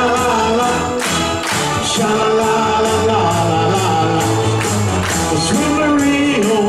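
A male singer sings live into a microphone over upbeat backing music with a steady beat.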